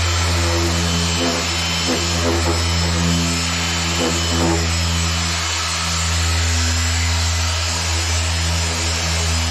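Griot's Garage electric dual-action polisher running steadily at speed setting 4, its pad working cutting compound into freshly painted bumper paint. The motor hum holds an even pitch with only slight dips in load.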